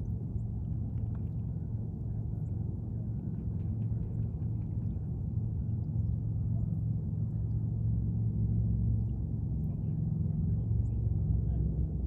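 Steady low drone of a boat's engine running, growing slowly louder.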